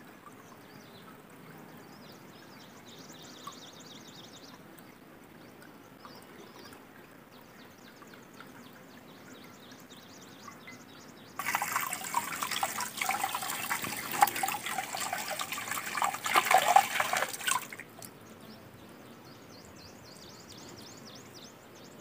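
Water from a spring pipe running into a full steel bucket, a faint steady trickle. About eleven seconds in, the stream falls straight onto stone slabs and splashes loudly for about six seconds, then drops back to a faint trickle.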